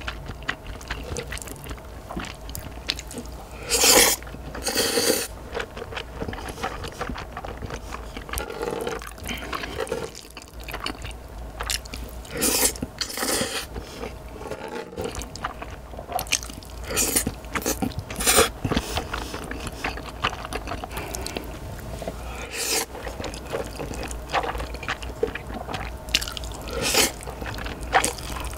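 Close-miked eating of carbonara Buldak stir-fried noodles: a series of loud slurps every few seconds as mouthfuls of noodles are drawn in with chopsticks, with quieter chewing between them.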